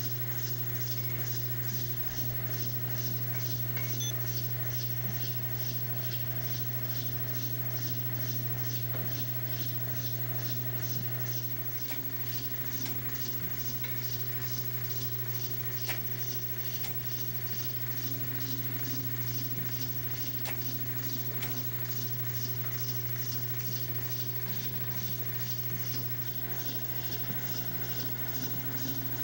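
Motor-driven petting arm of a home-built cat-petting machine running: a steady low hum with a quick, even ticking from its mechanism and a few separate clicks.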